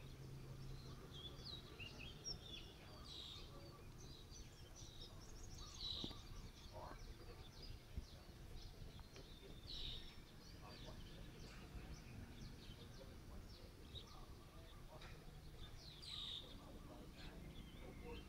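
Birds chirping faintly: scattered short, high calls, with a few louder bursts spread through, over a low steady background hum.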